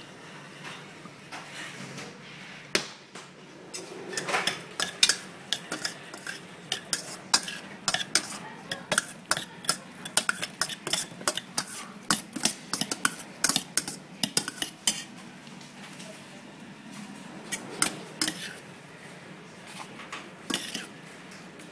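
Metal ladle stirring sweet corn kernels in a stainless steel bowl, clinking and scraping against the bowl in quick strikes for about ten seconds, then a few scattered clinks near the end as the corn is scooped into a cup.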